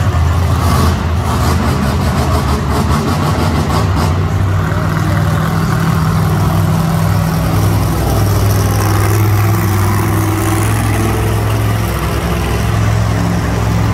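Monster truck engines running loud and steady, with a deep drone that swells about halfway through as a truck drives close by through the dirt.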